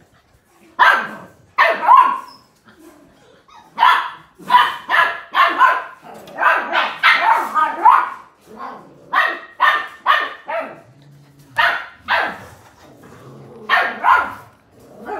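Blue heeler (Australian cattle dog) puppies barking at play: many short, sharp, high barks and yips in quick clusters, with brief pauses between.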